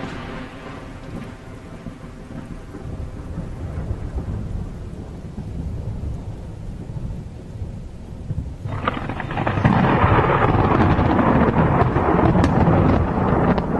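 Thunderstorm with rain: a low rumble of thunder dies away, then about nine seconds in a sudden thunderclap breaks into loud rolling thunder that carries on to the end.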